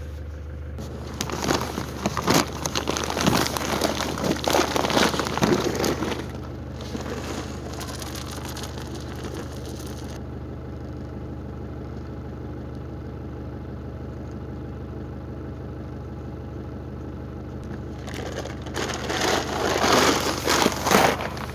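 Grain feed sacks rustling and crinkling as they are handled, in two spells, one near the start and one near the end. A 4x4's engine idles steadily underneath.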